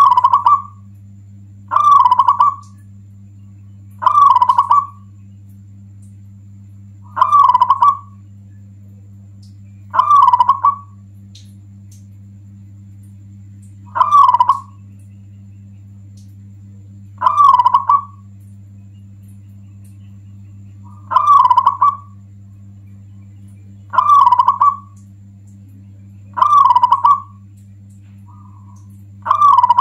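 Zebra dove (perkutut) cooing loudly, its short cooing phrase repeated eleven times, one every two to four seconds. A steady low hum runs underneath.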